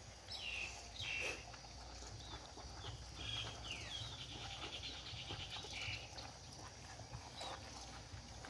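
Puppies whimpering: a string of short, high-pitched squeaks and whines, with a quick fluttering run of them about halfway through.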